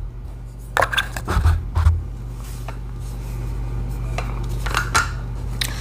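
Light clicks and rubbing as a Mossberg 500 pump shotgun and its shells are handled, a few sharp clicks scattered through, over a steady low hum.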